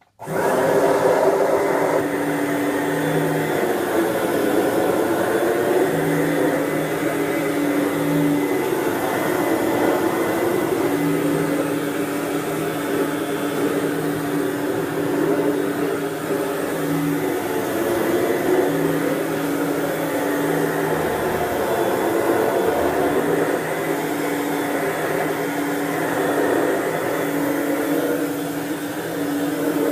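Dirt Devil Broom Vac stick vacuum switched on and running steadily as it vacuums, with a hum in its motor noise that comes and goes.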